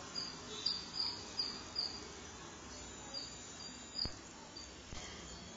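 Faint, high-pitched chirps repeating about twice a second over low background hiss, with a soft click about four seconds in.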